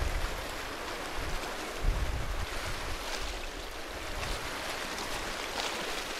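Sea waves washing against the shore rocks, a steady rushing wash, with wind gusting on the microphone near the start and again around two seconds in.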